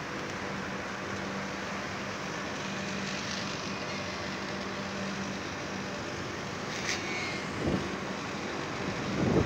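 Steady outdoor city background noise: a constant hiss with a low, even hum, of the kind that comes from distant traffic and rooftop machinery. A brief higher sound comes about seven seconds in, and two low thumps of wind on the microphone come near the end.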